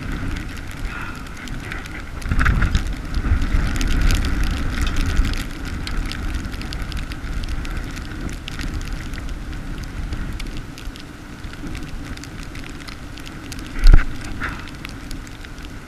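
Wind buffeting the microphone over a steady crackle of sleet, with a strong gust rumbling from about two to five seconds in. A sharp thump near the end is the loudest sound.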